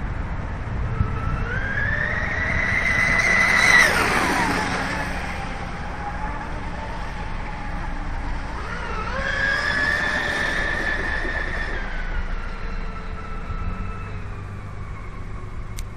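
Twin brushless electric motors of a 34-inch Saga RC catamaran running at full speed with a high-pitched whine. The whine rises, then drops sharply in pitch as the boat passes close about four seconds in. A second run builds around nine seconds in, holds, and fades with a slow fall in pitch as the boat moves off across the water.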